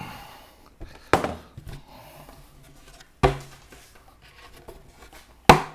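Three sharp wooden knocks about two seconds apart, plywood panels knocking as they are handled.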